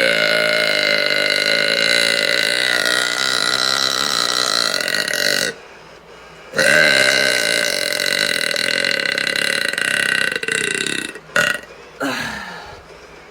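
A woman belching long and drawn out: one steady belch of about six seconds, then, after a second's pause, another of about four seconds, followed by two brief sounds near the end.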